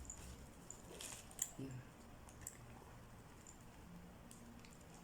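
Faint scattered clicks as a handbag is handled.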